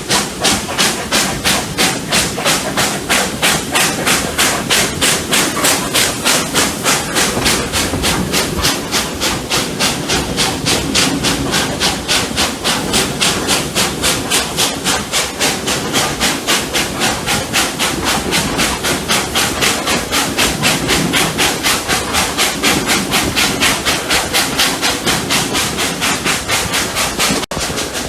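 Exhaust beats of double-headed steam locomotives Rx207 and 621 working hard up a grade, a rapid even chuffing that gradually quickens.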